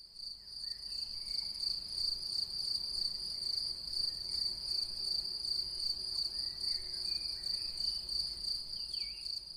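Insects chirping in a steady, high, fast-pulsing trill, with a few faint short calls behind it, two near the end.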